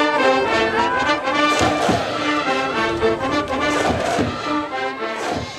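High school brass band in the stands playing a cheering tune: held brass notes moving in steps, with a few drum strikes.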